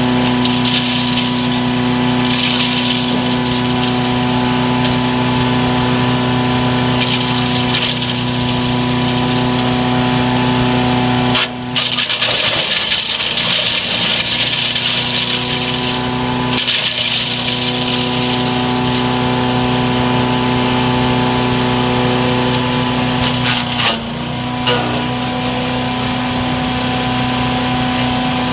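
Single-cylinder Predator 212cc gas engine on a 3-inch wood chipper running steadily, with spells of a higher rushing noise several times over as material goes through. The engine note weakens for a few seconds about halfway through and briefly again near the end, as if dragged down by load.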